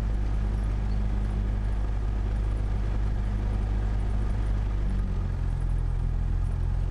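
Cessna 172's piston engine and propeller running steadily at low power, a low droning note whose pitch shifts slightly about five seconds in.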